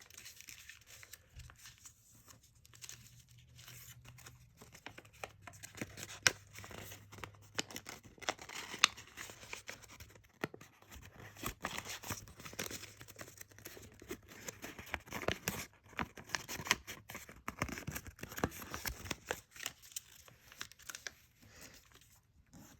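Origami paper being folded and creased by hand: irregular crinkling and sharp paper crackles, with a couple of louder snaps about six and nine seconds in.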